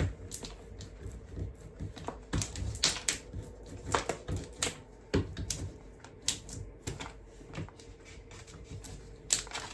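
Irregular light clicks and taps, a few each second, from paper and small crafting tools being handled and pressed on a work surface.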